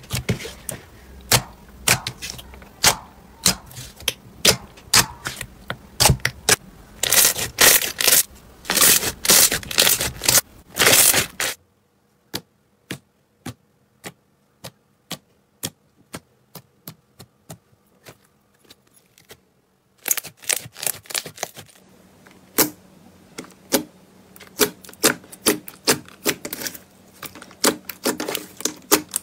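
Slime squeezed and pressed by hand, popping and crackling with quick clicks as trapped air bursts. The pops come thick and loud at first, thin out to separate clicks over near silence about twelve seconds in, then come thick again about twenty seconds in.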